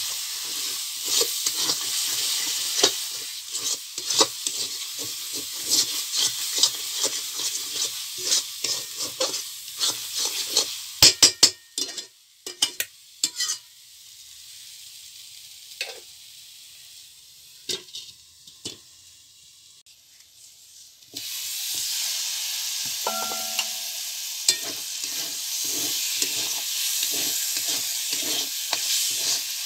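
Spice paste frying in oil in a steel kadai, sizzling, with frequent clicks and scrapes of a metal spatula stirring it. Midway the sizzle drops low with only occasional taps, then about two-thirds in it returns suddenly, louder, with the stirring clicks.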